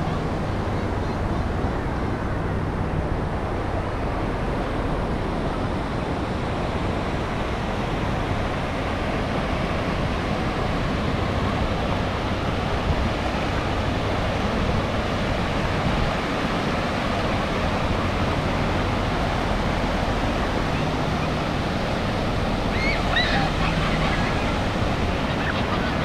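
Ocean surf: a steady rush of small waves breaking and foaming water washing through the shallows.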